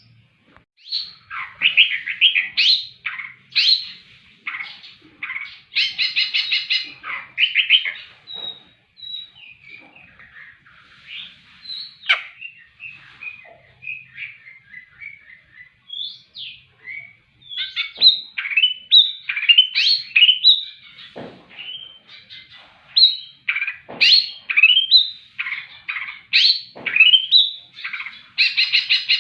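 A long-tailed shrike (cendet) sings a fast, unbroken song of short chirps, buzzy trills and rising and falling whistles, full of phrases copied from other birds. The song runs quieter through the middle and comes back louder for the second half.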